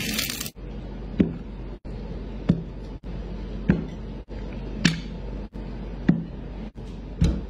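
Plates of food being set down on a table: six soft knocks, evenly spaced a little over a second apart.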